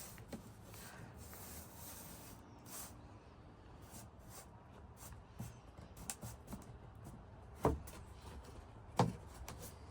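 Quiet rubbing and light clicks of a vinyl floor plank being worked into place, with two sharper knocks near the end as the last plank is set down.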